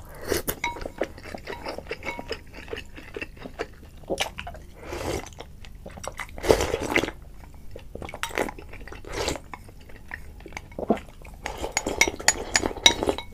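Noodles and soup broth slurped from a ceramic bowl, in several separate slurps, with chopsticks clicking against the bowl.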